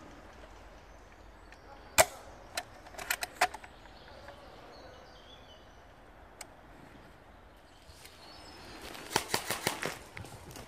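Sharp cracks of airsoft guns firing: one loud shot about two seconds in, a few more just after, a single one around the middle, and a quick string of shots near the end.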